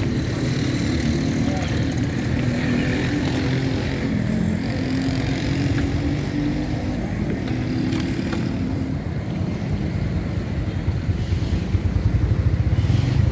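Small motorcycles and scooters running past on a street, with a steady traffic rumble; near the end one motorcycle's engine comes close and gets louder, its exhaust beat pulsing rapidly.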